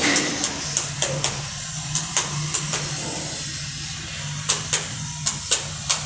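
Sharp knocks, like hammer blows, scattered at first and then coming about three a second near the end, over a steady low hum.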